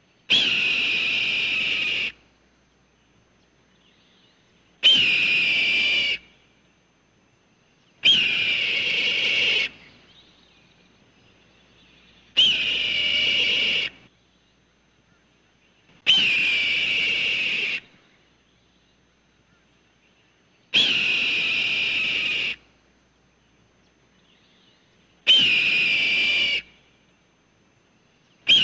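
Red-tailed hawk screeching: seven long screams about four seconds apart, each starting sharply and then drawing out as a rasping, slightly falling cry. An eighth scream begins at the very end.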